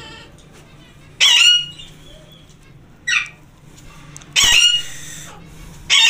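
A female Alexandrine parakeet, egg-bound and held in the hand while her vent is gently pressed to free the egg, gives harsh screeching calls, four in a few seconds, the longest about halfway through.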